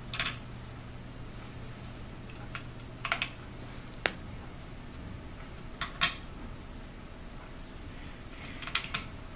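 Small screws clicking as they are handled and dropped into the mounting holes of a magnetic-drive pump's volute. About eight light clicks come a second or two apart, several in quick pairs.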